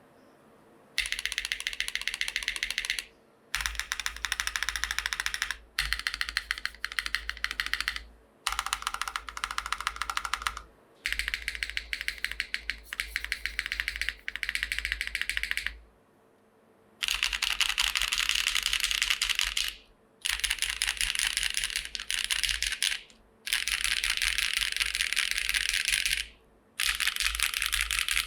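Fast typing on a Daji Ocho Cuatro TKL custom mechanical keyboard. It has lubed, filmed retooled Cherry MX Black linear switches and GMK keycaps on a top-mount aluminium plate with no dampening. The typing comes in dense runs of keystrokes two to three seconds long, with short pauses between them.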